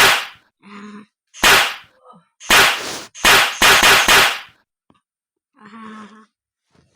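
A series of about seven sharp, loud bangs like gunshots, with four in quick succession a little past three seconds in. A short steady pitched sound comes between the first two bangs and again near the end.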